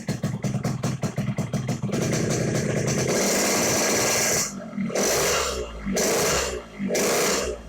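Yamaha RX-King 135cc single-cylinder two-stroke engine running with rapid even pops, then revved and held high from about three seconds in, followed by throttle blips about once a second. Its exhaust note is raspy yet crisp.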